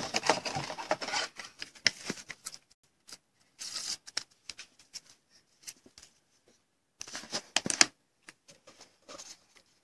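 Hands handling a thick baseball trading card: irregular scraping, rustling and small clicks in short bursts with quiet gaps between.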